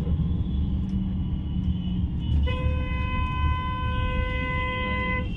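Low engine and road rumble from a moving bus, heard from inside the cabin. About two and a half seconds in, a vehicle horn sounds one steady note and is held for nearly three seconds.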